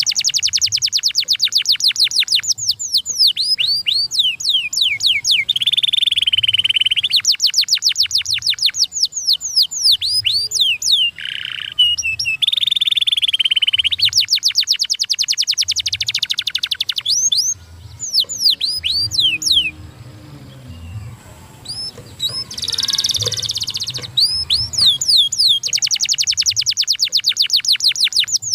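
Domestic canary singing: long, fast trills of rapidly repeated high notes that sweep downward, broken by a short pause about two-thirds of the way through before the trilling resumes.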